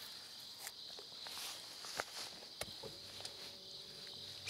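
Quiet outdoor ambience: a steady high-pitched insect drone from the wooded bank, with a few light clicks and knocks from rod and reel handling on the boat deck, and a faint low hum in the second half.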